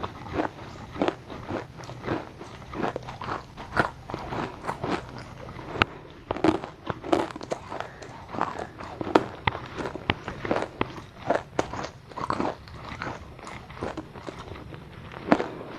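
Someone chewing a crunchy, slightly sticky food close to the microphone, with sharp crunches about twice a second.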